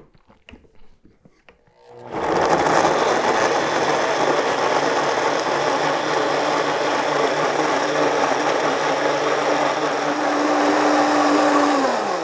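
Countertop blender switched on after a few light clicks about two seconds in, running steadily at high speed as it purees fermented peppers and brine into a sauce; its motor pitch drops as it shuts off at the end.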